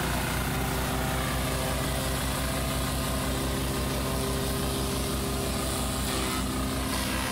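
Small stationary engine running steadily, belt-driving a forage chopper that is shredding dry corn stalks fed in by hand.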